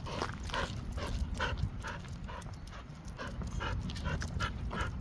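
A dog panting steadily, about two to three breaths a second, over a low steady rumble.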